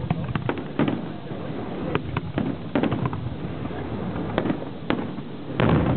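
Fireworks going off: a string of sharp bangs and crackles at uneven spacing, with a louder, heavier burst near the end.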